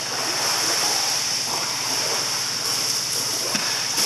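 Steady rushing, hissing water noise in a dog swimming pool as dogs paddle across it, with a few faint splashes near the end.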